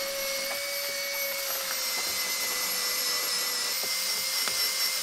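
Angle grinder running steadily with a high whine over a hiss, its pitch sagging slightly; a few light knocks on top.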